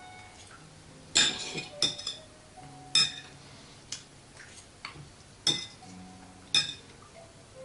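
Metal knife and fork clinking and scraping on a ceramic plate while cutting up a pancake: about six sharp, ringing clinks spread out with short pauses between.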